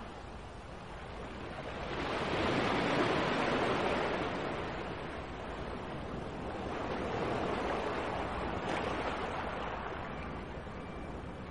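Ocean waves washing in slow surges, swelling and fading twice, the loudest a couple of seconds in.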